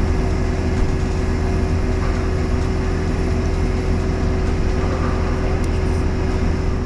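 Heavy engine running steadily: a low rumble with a constant hum over it that cuts off at the end.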